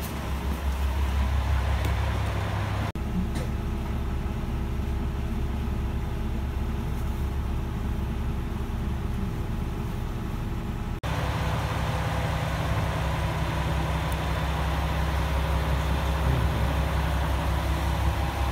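Diesel railcar engines idling steadily with a low drone, in three cut-together stretches: the tone changes abruptly at about 3 seconds and again at about 11 seconds.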